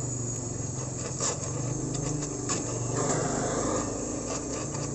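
Gas welding torch flame hissing against an aluminium motorcycle wheel hub, with a steady low hum underneath and scattered crackles and scratches as aluminium filler rod is worked in. The aluminium is being built up to rebuild a bearing seat that has worn oversize and lets the wheel bearing sit loose.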